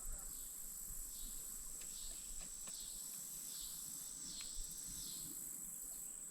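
Steady high-pitched insect chorus, with a series of rising-and-falling chirps through the middle and a few faint light knocks.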